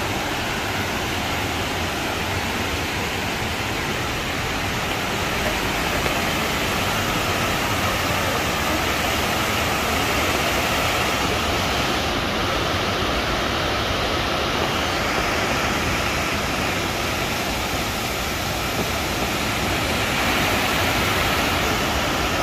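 Water pouring over a dam and cascading onto rocks: a steady rushing noise.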